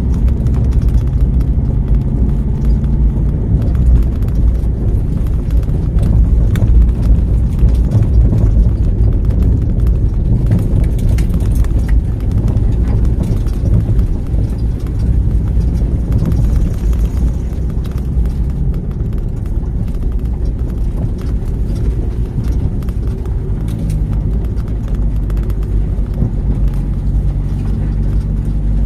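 Land Rover Freelander driving along a rough off-road lane: a steady, low engine note with frequent knocks and rattles from the body and suspension over the bumps.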